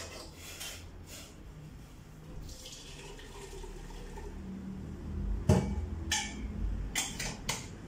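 Water heating to the boil in a pot on a butane gas burner, bubbling with a steady low rumble. Four sharp knocks of kitchenware come in the last few seconds, the first the loudest.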